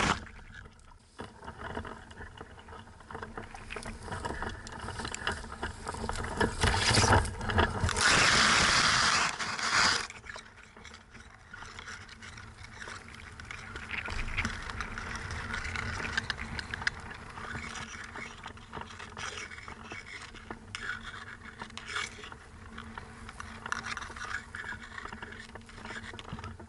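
Wind rushing over a hang glider-mounted camera's microphone, with grass and sail fabric rustling and scraping against it; the wind is loudest for a few seconds about a third of the way in, then cuts off suddenly.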